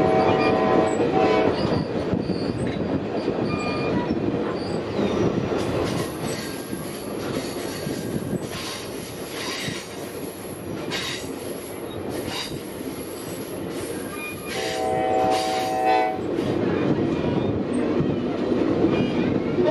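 Steam train running, with its whistle sounding briefly at the start and again for about a second and a half late on, over the steady running noise of the train. Through the middle stretch there is a thin, high, steady squeal from the wheels.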